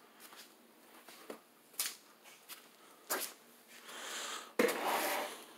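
Footsteps and light handling knocks as someone walks across a concrete shop floor, a few scattered clicks, then a louder rustling, breathy stretch about four seconds in.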